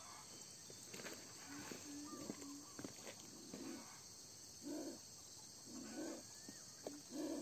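King cobra hissing: faint, low, rough hisses repeated about once a second in the second half, over a steady chorus of crickets.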